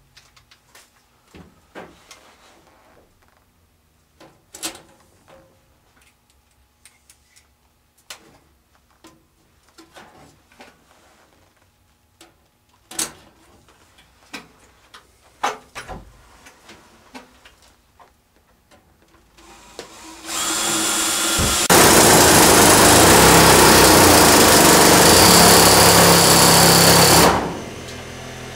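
Scattered knocks and clinks of galvanized sheet-metal vent pipe being handled. About twenty seconds in, a corded power tool starts and runs loud and steady for about seven seconds, then drops to a quieter steady hum near the end.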